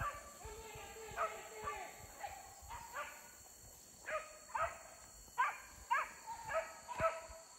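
Hunting dogs giving chase through the brush: a few drawn-out bays at first, then a string of short, sharp barks at irregular intervals, loudest in the second half.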